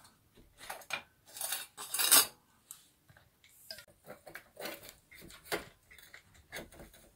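Steel moped fork leg scraping and clinking against its mount as it is worked into place by hand: a run of irregular metal scrapes and clicks, the loudest a harsh scrape about two seconds in.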